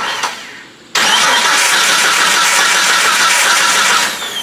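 Turbocharged Jeep 4.0 inline-six being cranked over on the starter with the valve cover off. A short crank stops about a second in, then a second crank runs for about three seconds and cuts off, leaving a falling whine as it winds down.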